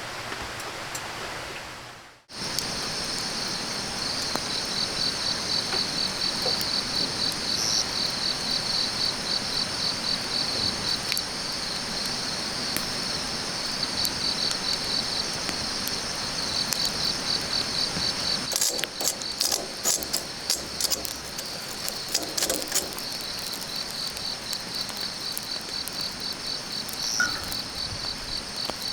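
Summer insects chirping in a steady chorus of fast, even pulses that starts after a brief dropout about two seconds in. A run of sharp clicks and crackles comes about two-thirds of the way through.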